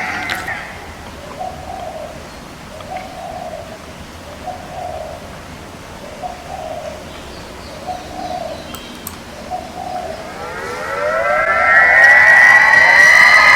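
Soft dove-like cooing, six calls about a second and a half apart, then about ten seconds in a loud wail that rises in pitch like a siren and holds high.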